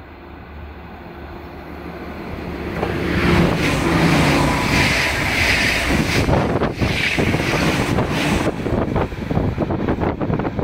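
Seven-car NS ICMm intercity electric multiple unit passing at full speed, coming up from behind: the sound builds over the first three seconds into a loud, steady rush of wheels on rail that holds for about five seconds. As the train clears, gusts of its wake buffet the microphone.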